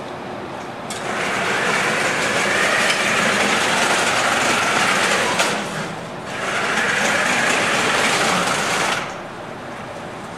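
FRC competition robot's electric drive motors and gearboxes whirring as it drives and turns across a tile floor, in two runs: one starting about a second in, a brief letup near the middle, then a second run that stops about a second before the end.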